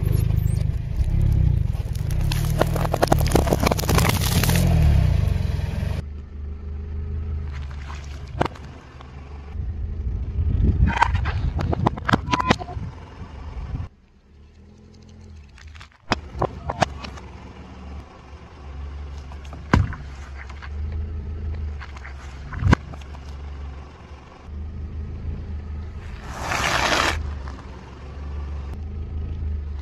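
Car's tyre rolling slowly over objects with the engine running low, crushing them with sharp cracks and crunches: a dense crackle of hard-candy lollipops breaking in the first few seconds, then scattered single cracks and pops.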